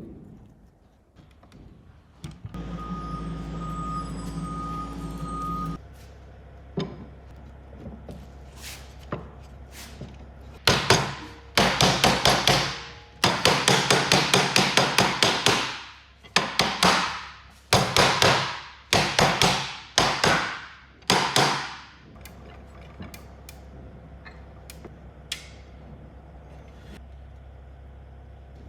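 Hammering on wood in quick runs of sharp blows, each run about a second long and fading away, repeated about half a dozen times. A few seconds earlier, a steady electric machine hum runs for about three seconds.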